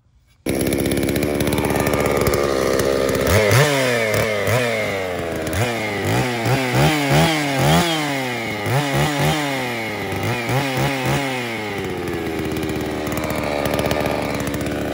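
Holzfforma G660 two-stroke chainsaw running: it cuts in already idling, then is revved in a quick series of short blips, rising and falling about a dozen times. It settles back to a steady idle for the last few seconds.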